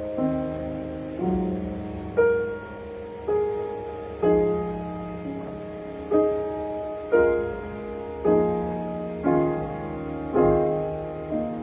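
Slow, gentle piano music: sustained chords struck about once a second, each fading away before the next.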